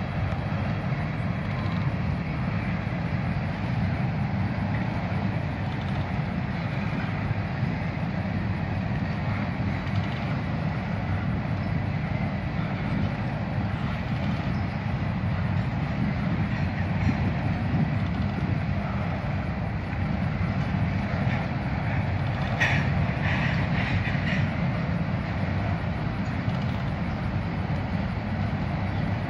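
Covered hopper cars of a freight train rolling steadily past, a continuous low rumble of steel wheels on the rails, with a brief burst of sharper metallic clatter about three-quarters of the way through.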